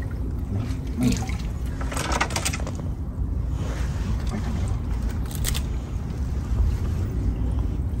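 Shallow seawater trickling and lapping over a steady low rumble.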